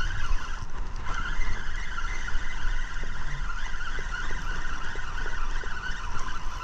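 A boat motor running steadily, with wind buffeting the microphone and a few faint ticks.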